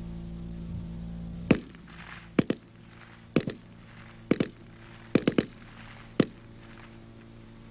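Browning Automatic Rifle firing on a range in short bursts of one to three rounds, about eleven shots spread over some five seconds, with a clear pause between bursts. A steady low hum runs underneath.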